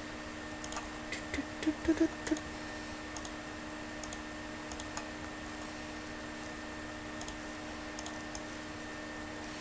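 Computer mouse clicking irregularly, the clicks often coming in quick pairs, over a steady background hum.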